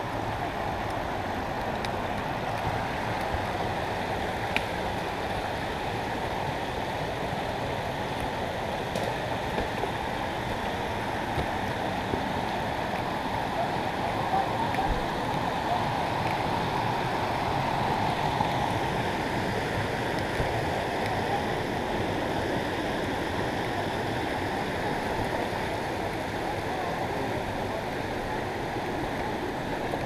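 Small forest stream running over rocks and little cascades: a steady rushing of water that grows slightly louder around the middle.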